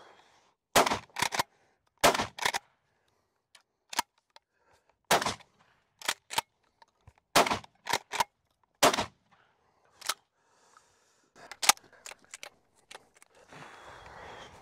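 Rock Island All Gen 12 pump-action 12-gauge shotgun fired several times with 3-inch high-velocity #4 shot shells, sharp shots a second or two apart, with the pump action clacking between them.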